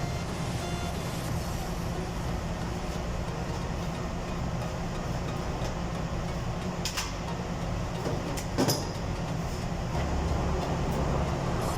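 Steady low hum of an electric motor water pump running, with a couple of short sharp knocks about seven and nine seconds in.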